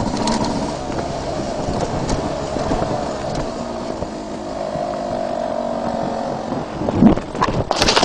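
Two-stroke motocross bike engine running, its pitch drifting slowly up and down, with a louder rough burst and sharp crackles near the end.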